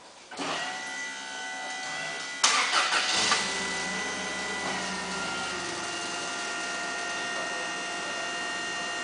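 Forklift engine starting about two and a half seconds in, then running steadily with a steady high whine.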